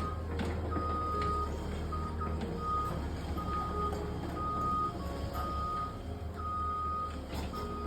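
Backup alarm on heavy equipment beeping repeatedly at one steady pitch, over the steady low rumble of a diesel engine running.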